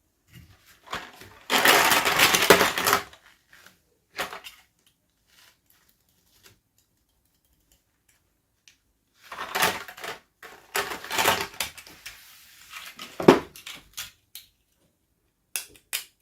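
Packaging crinkling and rustling in two long bursts as it is handled and opened by hand, with small clicks and taps in between.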